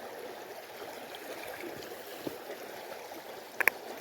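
Mountain trout stream running steadily, with two sharp clicks close together near the end.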